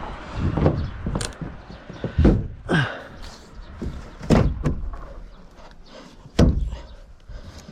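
A series of irregular heavy thumps and knocks, about five in all, spaced unevenly.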